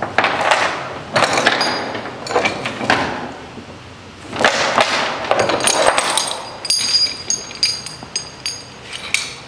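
Steel tie-down chain rattling and clanking as it is pulled through and hooked on a flatbed trailer to secure a steel coil. In the second half, a run of sharp metal clinks, some with a short ring.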